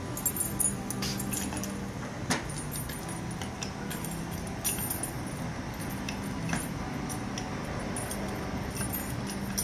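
Scattered metallic clicks and clinks of small metal parts and hand tools being handled during reassembly of a shift lock and shifter housing, the sharpest click about two seconds in, over a steady low hum.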